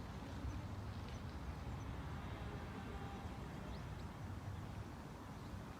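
Faint outdoor ambience: a steady low rumble with a few faint, short bird chirps.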